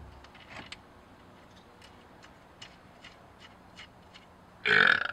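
Faint, scattered metallic ticks as a rusty rear brake rotor is handled on its hub. About four and a half seconds in, a loud, harsh, pitched sound lasting about half a second.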